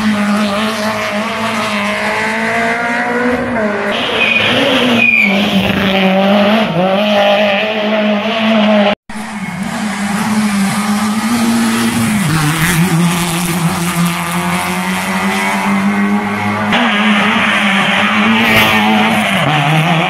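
Rally car engines running hard through a tight hairpin, the engine note holding and then dropping in steps as the gears change. A couple of short tyre squeals come about four to five seconds in.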